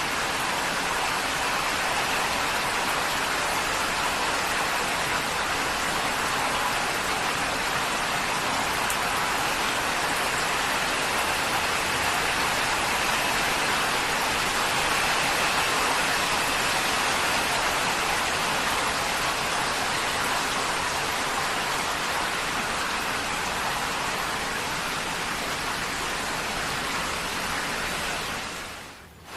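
Heavy rain drumming on a corrugated tin roof, a dense, steady patter. It dips sharply for a moment just before the end and comes straight back.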